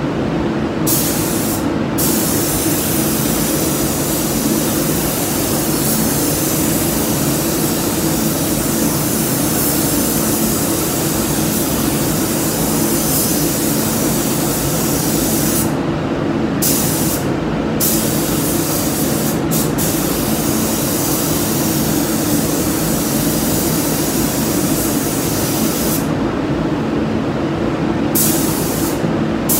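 Gravity-feed spray gun hissing with compressed air as it lays a coat of paint on a car body, the hiss stopping briefly whenever the trigger is released: about a second in, twice around the middle, and for a couple of seconds near the end. A steady low drone runs underneath and carries on through the gaps.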